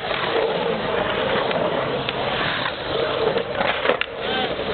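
Skateboard wheels rolling on a concrete bowl: a steady rolling rumble as the skater carves, with a few sharp clacks near the end.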